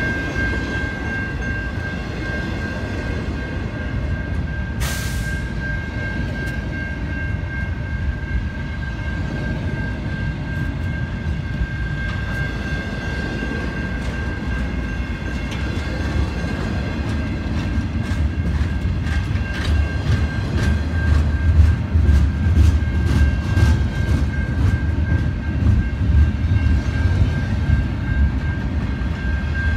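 Double-stack intermodal freight train rolling past a level crossing: a steady low rumble of wheels on rail, with rapid clicking over the rail joints that grows louder in the second half. A level-crossing bell rings steadily over it.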